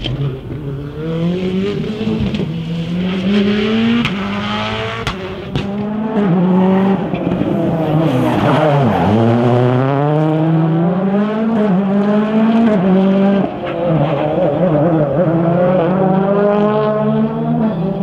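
Rally cars' turbocharged four-cylinder engines at full throttle, the pitch repeatedly climbing and then dropping with gear changes and lifts, with a sharp drop and recovery about nine seconds in.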